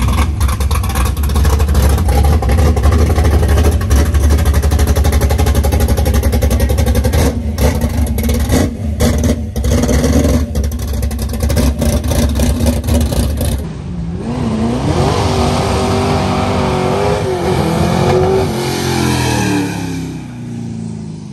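Loud, rough rumble of a hot-rod drag car with an open exhaust pulling away slowly at close range. About 13 seconds in the sound changes abruptly to another car's engine revving up and down as it drives off, its pitch falling and fading near the end.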